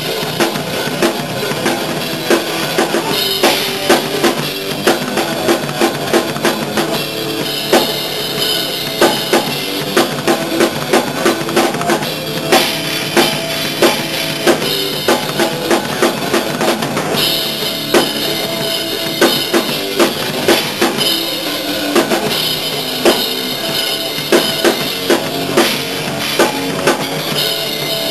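Drum kit played through a heavy metal song: steady bass drum and sharp, regular snare hits, with cymbals coming in and dropping out every few seconds as the song changes section.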